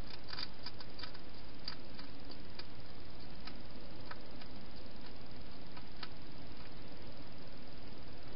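Wild hedgehog crunching dry food from a bowl inside a plastic feeding box: irregular sharp clicks, bunched in the first couple of seconds and then spaced about a second apart, over a steady hiss.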